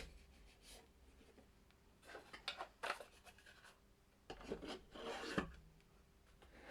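3D-printed plastic insert holders being slid into a tight-fitting cardboard game box: a few short scraping rubs, with a sharp click about five seconds in.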